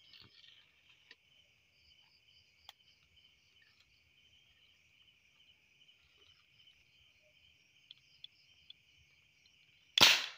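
Crickets chirping steadily. Near the end, a single loud, sharp blast that fades within half a second, the homemade PVC air gun firing.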